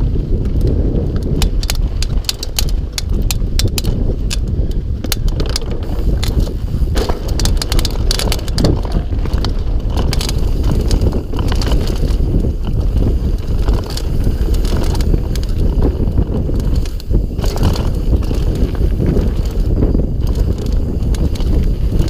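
Mountain bike descending a loose gravel trail, heard from a chest-mounted action camera: tyres crunching over stones with constant clattering and rattling from the bike, under a heavy wind rumble on the microphone.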